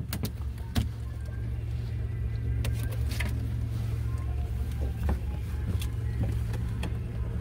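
A boat's engine running at a steady idle, a low even hum, with a few light knocks and clicks over it.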